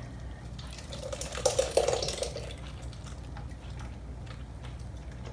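Evaporated milk pouring from a can into a mixing bowl of batter: liquid splashing into the bowl, loudest from about one to two and a half seconds in, then settling to a softer trickle of a thin stream.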